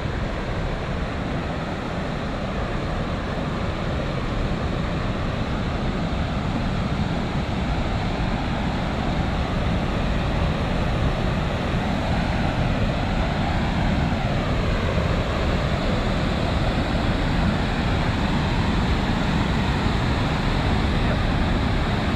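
Water rushing over a river weir: a steady, even rush of falling water that grows slowly louder.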